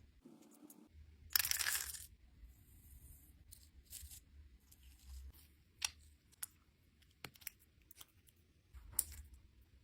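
Thick textured slime being pressed and pulled by hand, with scattered sharp crackles and pops and one louder crackling burst about a second in.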